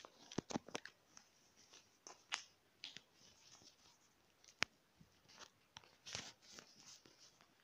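Faint handling noise: irregular clicks and rustles as the recording phone is moved about, with one sharper click a little over halfway.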